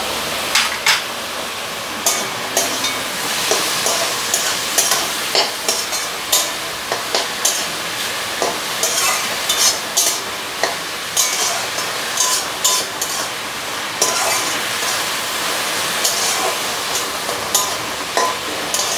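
Ash gourd sizzling as it fries in a metal kadai while a spatula stirs it, clicking and scraping against the pan about once or twice a second.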